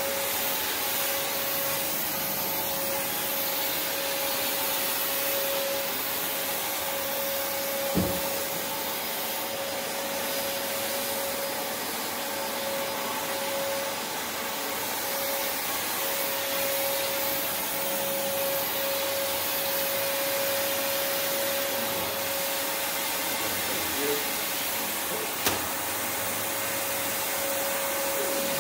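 Prolux X8 Elite backpack vacuum running steadily while vacuuming, a constant rushing noise with a steady motor whine. Two short knocks stand out, about eight seconds in and again near the end.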